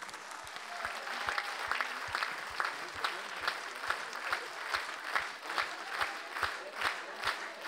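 Large theatre audience applauding, the clapping falling into a steady rhythm in unison at a little over two claps a second and growing louder.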